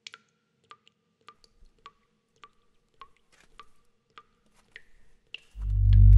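Water dripping into standing water, one drop about every 0.6 seconds, each a short plink. About five and a half seconds in, a loud low droning music chord comes in and holds.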